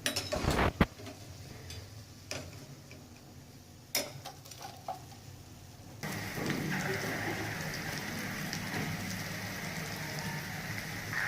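Black lentil batter fritters deep-frying in hot oil in a karahi: a few sharp knocks and clicks in the first half, then from about six seconds in a steady loud sizzle of the oil.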